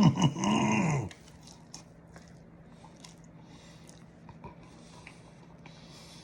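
A brief vocal sound about a second long, its pitch rising then falling, then soft chewing and mouth noises from someone eating a soaked beef sandwich, over a faint steady hum.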